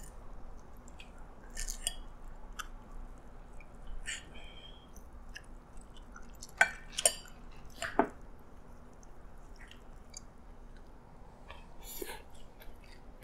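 Eating sounds: a metal spoon and fork scraping and clinking against a plate while pulling apart fried chicken, with three sharp clinks a little past the middle, and chewing near the end.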